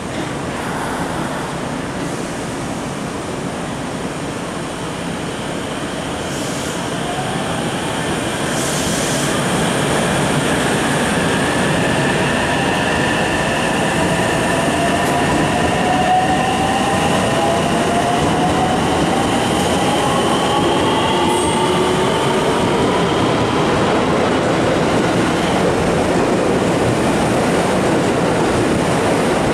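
JR West 225 series electric multiple unit pulling away from the platform. Its traction motors whine in several tones that rise in pitch as the train accelerates past, and the wheels run loudly on the rails, growing louder about eight seconds in and then holding steady.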